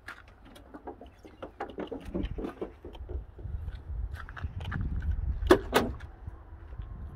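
Scattered clicks and knocks from handling a Ricon wheelchair lift and its hand control pendant at a van's rear doorway, with two loud sharp clicks about five and a half seconds in.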